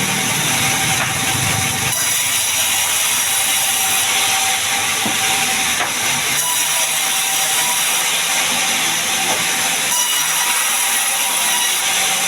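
Sawmill machinery running steadily: a continuous loud mechanical hiss and rattle with a faint steady whine above it.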